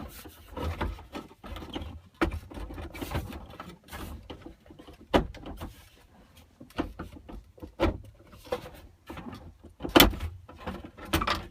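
Plastic overhead console cover of a Ford F-250 Super Duty being worked onto its clips: irregular clicks, knocks and rubbing of plastic, with the loudest knock about ten seconds in.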